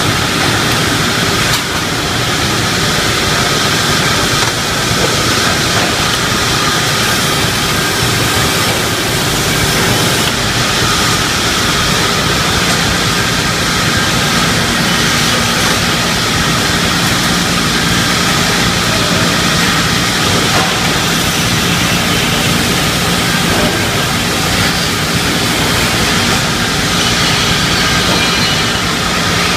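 Pallet-board ripping saw machine running: a loud, steady mechanical noise of saw and motor, with a faint hum underneath.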